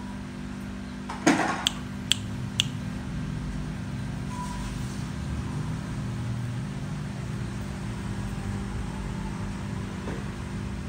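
Steady low background hum with one sharp knock about a second in, followed by three short clicks spaced under half a second apart.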